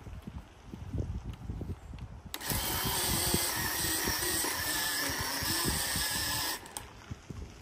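Brush crackling and snapping, then a cordless electric pole saw's motor runs with a steady whine for about four seconds and cuts off.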